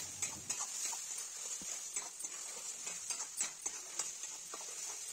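Wet ground onion-tomato masala sizzling in hot mustard oil in a metal kadhai, with irregular clicks and ticks as it is stirred with a metal spatula and spatters in the oil.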